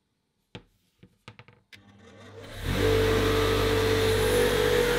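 A few sharp clicks, then a Clarke 8-inch bench grinder's motor spins up to speed over about a second and runs with a steady hum and whine.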